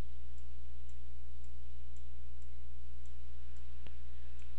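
Steady low electrical hum with faint, evenly spaced ticks about twice a second. Near the end comes a single sharp click, which fits a mouse click on the software's jog button.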